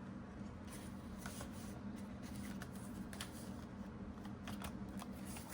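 Faint rustling and soft taps of paper cash and envelopes being handled, over a steady low hum.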